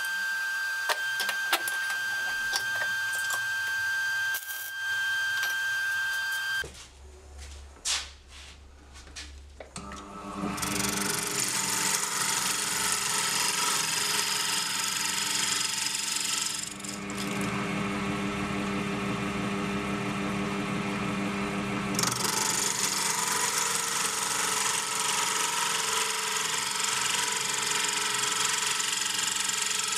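Wood lathe running while a hand-held turning tool cuts a spinning wood sphere blank: a steady scraping cut over the motor's hum. The cutting eases off for a few seconds in the middle, then resumes. Before the lathe starts, a steady high tone with light clicks is heard.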